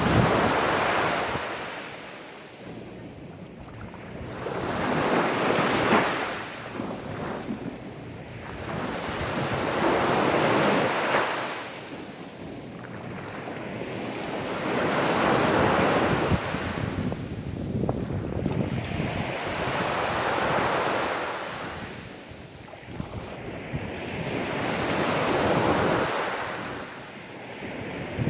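Gentle sea waves washing up onto a sandy beach. Each wave swells and fades every four to five seconds, about six times.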